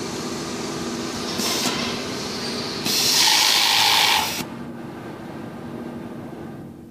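Flatlock cylinder-bed industrial sewing machine running steadily as it stitches elastic onto a garment waistband, a whirring hum. About three seconds in, a loud hiss lasts about a second and a half, and after it the machine runs quieter.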